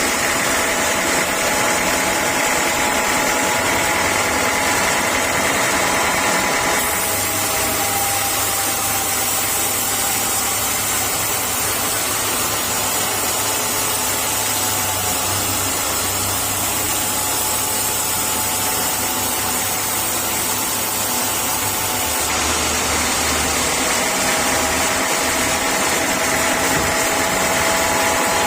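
Sawmill machinery running steadily: a constant mechanical drone with a steady whine. The sound changes abruptly twice, about a quarter of the way in and again about three quarters of the way in.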